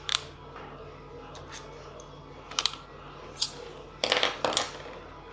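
Small hard plastic and metal clicks and taps from handling a ThinkPad laptop's parts and screws: a click near the start, a quick double click and another single one in the middle, then a louder cluster of clattering clicks about four seconds in.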